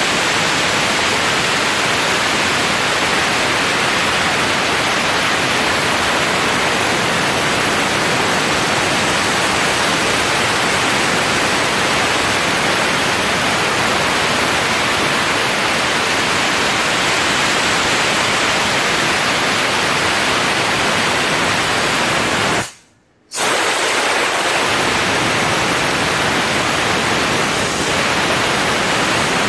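Steam-cleaner nozzle blasting a steady, loud hiss of steam onto a motorcycle windscreen to soften and lift its protective plastic film. The hiss breaks off for about half a second two-thirds of the way in, then comes straight back.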